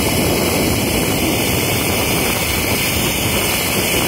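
Steady, loud rushing of a fast white-water mountain river, with wind on the microphone.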